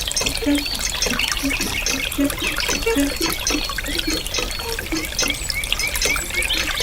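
Small stream of water trickling and splashing, with a steady patter of drops and plops, from a miniature model's water shower or hand pump.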